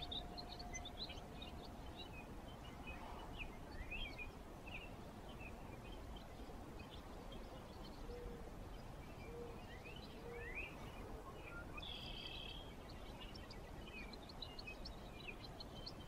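Outdoor ambience: small birds chirping and calling in many short, quick notes over a steady low background rumble. A faint steady hum fades out about two seconds in.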